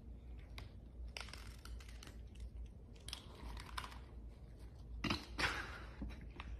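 Two cats chewing dry kibble from a bowl: faint, irregular crunching and clicking, louder about five seconds in.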